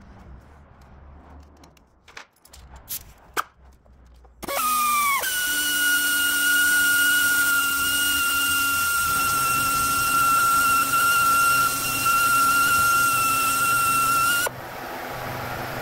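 Handheld pneumatic cut-off tool cutting through a plastic grille frame: it starts suddenly about four seconds in, its steady high whine dropping in pitch at first and then holding, over a hiss of exhaust air. It drops away near the end; a few light handling clicks come before it.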